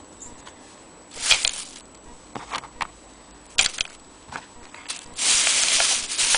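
A thin plastic bag crinkling and rustling as it is handled, in a short burst about a second in and a longer one near the end, with scattered light clicks and taps in between.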